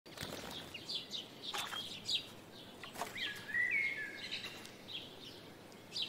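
Garden birds chirping in short, high notes, with one longer whistled phrase that glides in pitch a little after halfway.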